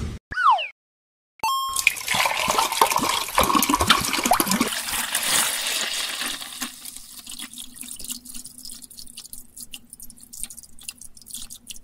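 Liquid poured from a plastic soda bottle into a clear plastic cup: a steady splashing stream that starts about two seconds in and grows quieter over its second half. A brief high squeak comes just after the start.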